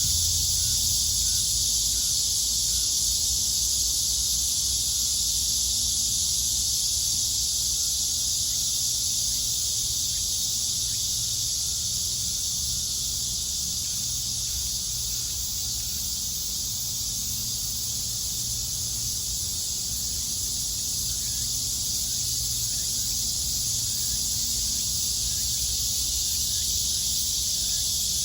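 A chorus of cicadas giving a continuous, steady high buzzing, with a faint low rumble underneath.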